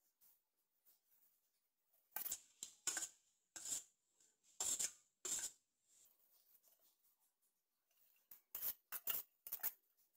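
Stainless steel plate scraping and knocking against a steel bowl as chopped herbs are scraped off it into the bowl: a run of short scrapes for a few seconds, then another burst near the end.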